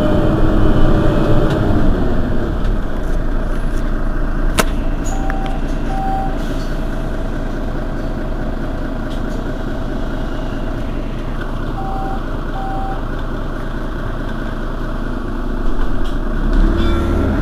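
Mercedes-Benz Citaro Facelift city bus's diesel engine idling steadily at a stop. Two pairs of short beeps sound about six seconds apart, with a single sharp click just before the first pair, and the engine grows louder near the end.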